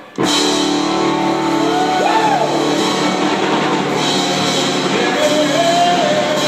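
Live band music with electric guitar and drums, cutting in abruptly just after the start, with a few gliding guitar or vocal notes.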